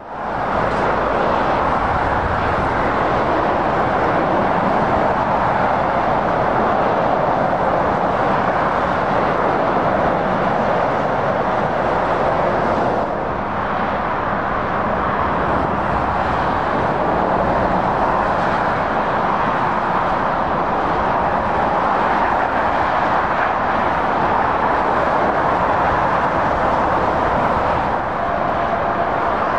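Steady roar of dense motorway traffic: tyres and engines of lorries and cars passing continuously on a multi-lane motorway, dipping briefly about halfway through.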